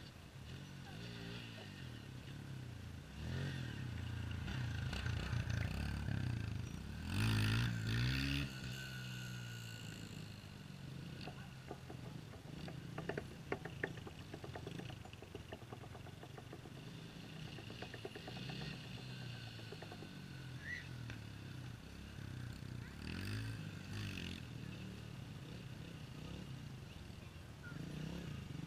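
Small dirt bike engines running at a distance, revving and easing off in pitch as the riders accelerate and slow, loudest about seven seconds in. A run of sharp ticks comes about thirteen seconds in.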